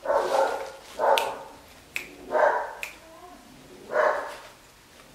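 A woman's voice: four breathy, wordless exclamations of delight about a second apart, with a few sharp clicks in between.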